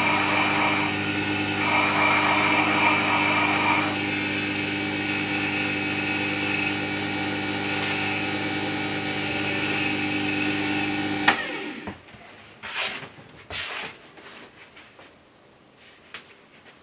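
Record Power WG200 wet stone sharpener running with a steady motor hum. For the first four seconds a chisel is held against its leather honing wheel, adding a hiss. About eleven seconds in there is a click as the machine is switched off and the hum cuts out, followed by a few soft rustles of a cloth.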